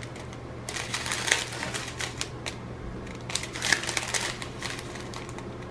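Round resin diamond-painting drills clicking and rattling inside small zip-lock plastic bags as the bags are handled and shaken, with the crinkle of the thin plastic. The clicks come in short clusters a second or so apart.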